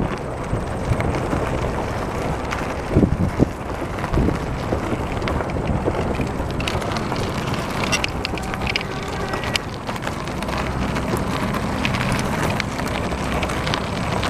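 Bicycle tyres rolling over a gravel path, with wind noise on the microphone and sharp clicks and rattles from the bike a few times, notably around three seconds in and again after about eight seconds.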